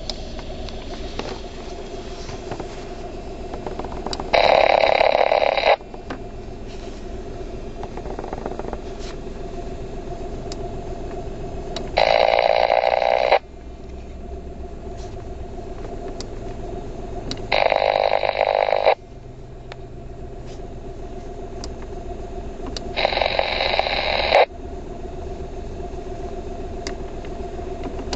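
Radio receiver hissing with static: a steady hum with a couple of held tones, broken four times by loud bursts of static about a second and a half long that start and stop abruptly, roughly every five to six seconds.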